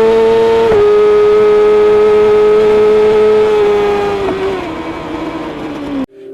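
Kawasaki ZX-6R inline-four engine with an Akrapovic exhaust screaming at high revs: a quick step down in pitch under a second in, then a steady high-pitched note. From about four seconds in the revs fall away, and the sound cuts off suddenly near the end.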